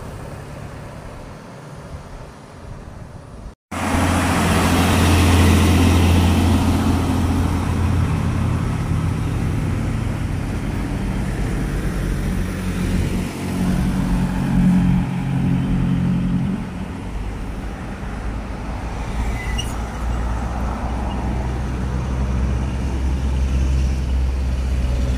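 Road traffic passing close by: a heavy truck's engine rumbles steadily as it approaches with a minivan and motorcycles. Fainter traffic comes before a brief dropout about three and a half seconds in.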